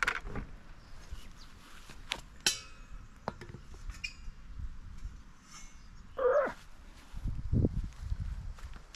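Sharp metal clanks, one of them ringing, as a cast-iron camp oven is lifted out of the fire, then low thuds near the end. A short whine breaks in about six seconds in.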